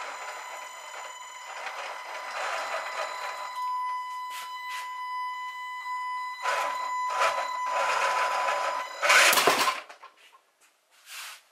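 Electric motor and gearbox of a radio-controlled model tractor under heavy load, straining against a tethered steel model excavator: a steady high whine over gear grinding. There is a louder burst of grinding about nine seconds in, then it cuts off, with one short burst after.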